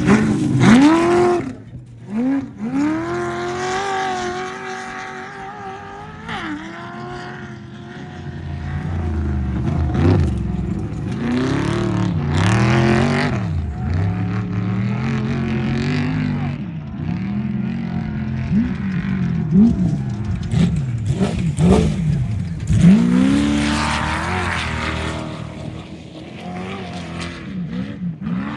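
Trophy truck engines revving hard, pitch climbing and dropping again and again through throttle lifts and gear changes as the race trucks drive past at speed.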